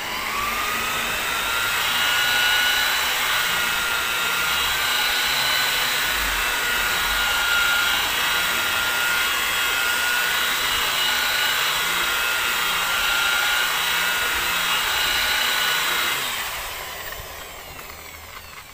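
Electric rotary polisher with a wool buffing pad spinning up, then running with a steady whine on a finishing speed (2–3) while working rubbing compound into car paint. Near the end it is switched off and winds down.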